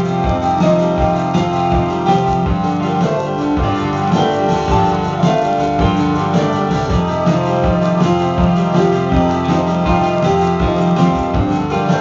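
Live instrumental band playing: keyboards and electric guitar over drums, with held keyboard notes and a steady pattern of drum hits. No singing.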